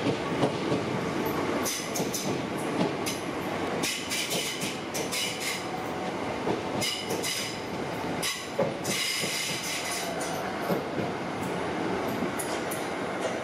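Southeastern electric multiple unit rolling along the platform: a steady rumble of wheels on rail, with high-pitched wheel squeal flaring up several times.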